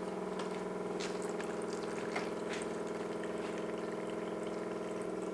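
Pump of a small reverse osmosis bucket running with a steady hum, pushing maple sap through the membrane.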